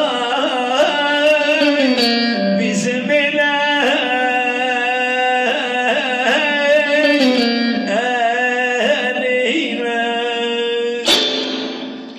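A man singing a Turkish folk song in long, ornamented phrases over plucked-string accompaniment. The music fades out near the end.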